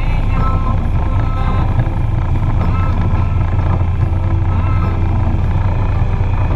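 Motorcycle engine running at cruising speed, with wind and road noise, as a steady low rumble.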